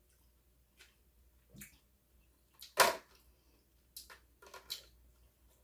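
Close-miked eating sounds from a seafood boil: a series of short wet smacks and cracks, the loudest about three seconds in, with a quick cluster of smaller ones near the end.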